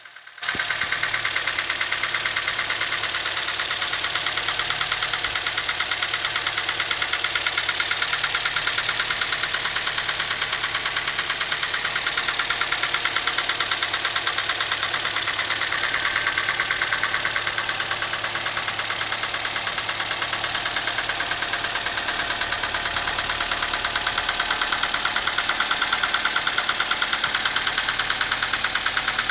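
Engine running steadily with a fast, even diesel-like clatter from the valvetrain, which the owner puts down to worn rocker arms.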